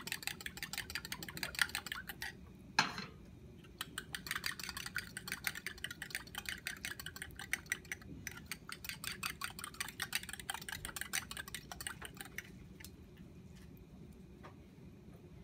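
Butter sizzling and crackling in a hot frying pan, the crackle coming from the water in the butter boiling off. The dense crackle thins out to a few scattered pops about twelve seconds in, as the bubbling slows and the butter is nearly ready. One sharp tap near three seconds in.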